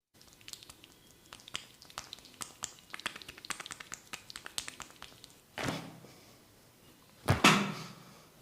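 Rapid, irregular light taps and clicks of a barber's fingers during a head massage, followed by two louder thumps, the second the loudest.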